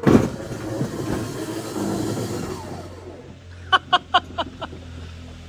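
Ride-on locomotive's brushless-motor drive train: a sudden loud crack, then rattling with a whine that falls in pitch as it winds down, then about six quick sharp clicks near the end. The 3D-printed PLA drive sprocket has broken and slips on the motor's hex shaft.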